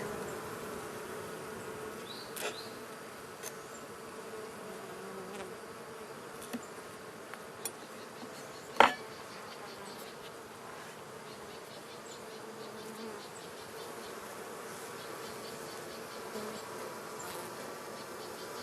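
A colony of honey bees buzzing around an open hive in a steady droning hum. A few sharp knocks sound over it, the loudest about nine seconds in.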